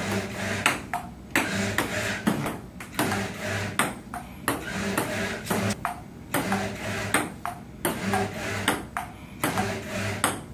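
Ping-pong rally: a table-tennis ball clicking off rubber paddles and the table in a steady rhythm, a hit about every half to three-quarters of a second.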